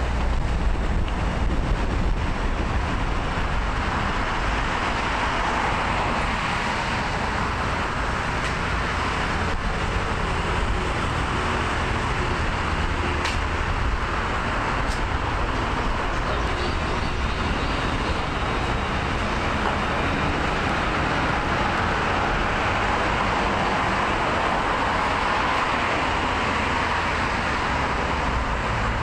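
City road traffic: cars passing on a multi-lane street, their tyre and engine noise swelling and fading, over a steady low rumble.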